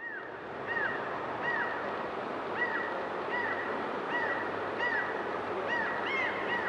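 A bird giving a short, arched call over and over, about once every three-quarters of a second, over a steady outdoor background hiss.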